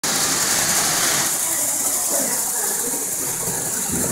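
Toy train running around its track with a steady hiss.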